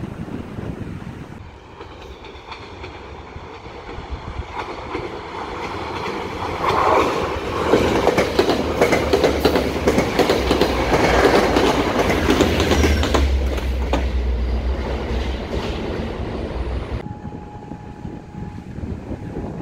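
EXO commuter train of bilevel passenger coaches rolling past at close range, its wheels clattering over the rail joints. The sound builds to its loudest in the middle, with a low diesel locomotive drone underneath in the second half. It cuts off abruptly near the end.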